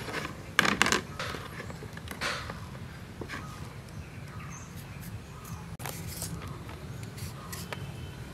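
Handling sounds as a red plastic plate and a kitchen knife are set down on a slatted bamboo table, with two sharp clacks just under a second in. These are followed by quieter, scattered clicks as the knife trims the stems of broccoli.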